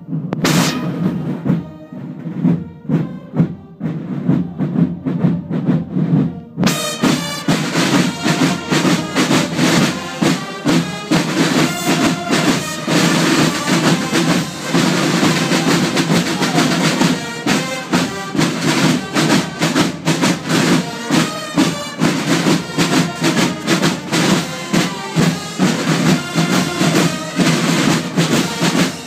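Carnival street band of rope-tensioned side drums beating a march; about seven seconds in, high-pitched wind instruments join with a tune over the drumming.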